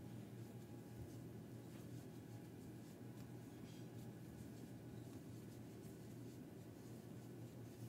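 Faint scratchy rustle of cotton yarn drawn through and over a crochet hook while double crochet stitches are worked, over a steady low hum.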